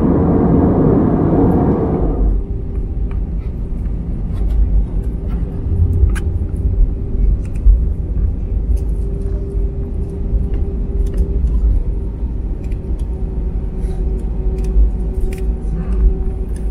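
Inside an Airbus A320 cabin on the ground after landing: a loud roar drops away about two seconds in. It leaves the low rumble of the wheels rolling on the tarmac, a steady engine hum and occasional small rattles.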